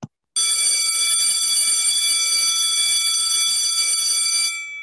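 Electric bell ringing continuously for about four seconds as a loud, steady, rattling ring. It stops near the end, and its gong keeps ringing faintly for a moment.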